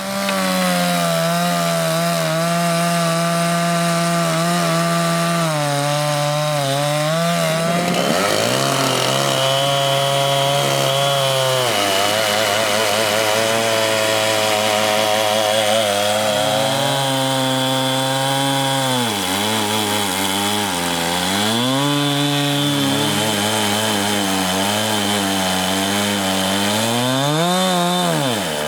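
Chainsaw running in a homemade Alaskan-style chainsaw mill, ripping a heart pine log lengthwise into boards. The engine holds a steady note, and its pitch sags under load and picks up again several times, most deeply about two-thirds through and near the end.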